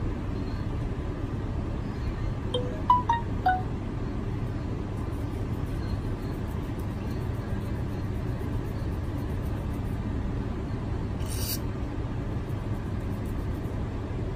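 Steady low hum throughout, with four short beeps of different pitch about three seconds in and a brief hiss at about eleven seconds.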